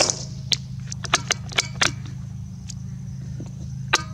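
A sharp crack right at the start, then a run of lighter metallic clicks and clacks over the next two seconds and one more near the end: a Marlin XT-22 bolt-action .22 rifle being handled and its bolt worked between shots. A steady low hum runs underneath.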